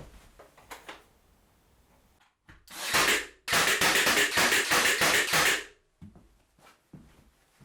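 A power tool run twice in short bursts, the second about two seconds long, with light knocks of wood and tools being handled before and after.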